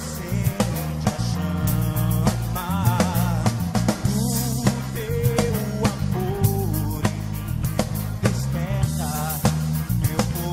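Live Catholic praise song: a male singer sings into a microphone with wavering held notes over a band with drum kit and bass drum keeping a steady beat.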